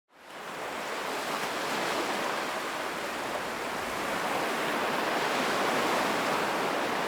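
Atlantic Ocean surf breaking and washing at the water's edge, a steady rushing noise that fades in at the start and swells slowly.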